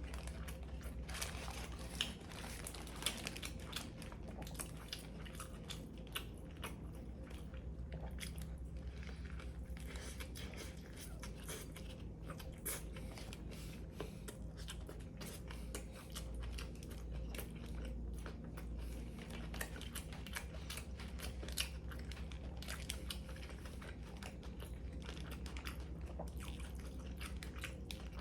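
Biting into and chewing a toasted Subway sandwich with crisp bread and vegetables: a long run of small irregular crunches and wet mouth clicks.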